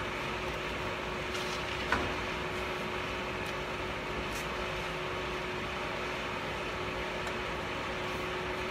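Steady machine hum with a faint, even whine from running CNC router equipment, and a few light knocks as a wooden board is handled on the router's table, the clearest about two seconds in.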